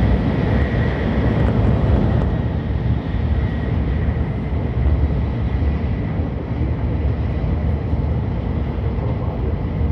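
Shinkansen train running at speed, heard inside the passenger cabin: a steady deep rumble with a faint, steady high whine over it.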